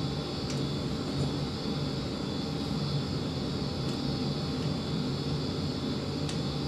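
A steady mechanical drone with a faint hum underneath, with a few light clicks about half a second, four seconds and six seconds in.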